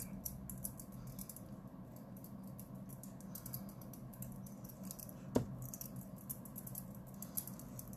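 Soft, rapid bristle swishes of a makeup powder brush swept and dabbed over the face, setting concealer with powder. There is a single sharp click about five seconds in.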